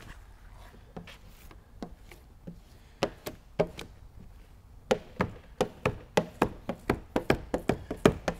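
Repeated sharp knocks and taps of a hard squeegee card working tint film onto wet car door glass: a few scattered at first, then a steady run of about three a second from about five seconds in.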